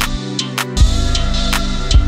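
Background music with a drum beat. The bass drops out for about half a second near the start, then comes back with a kick drum.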